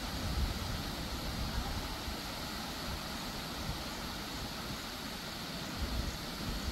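Wind rumbling unevenly on the microphone over a steady, even rushing hiss.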